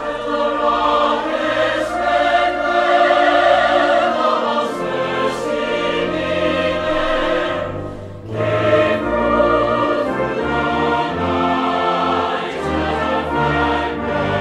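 Background music: a choir singing long held notes over an orchestra, with a short break between phrases about eight seconds in.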